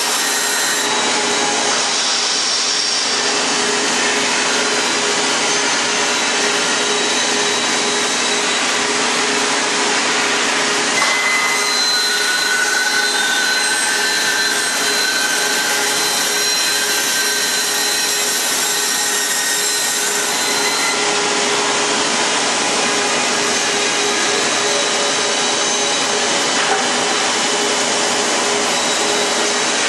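CNC band saw running, its blade sawing along a curve through a thick wooden chair-leg blank: a loud, steady machine noise with no letup.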